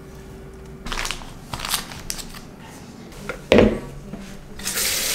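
Kitchenware clattering at a stainless steel sink: a few short knocks and scrapes of a pot and mesh strainer being handled, one louder knock about three and a half seconds in. Near the end the tap is turned on and water runs into the sink.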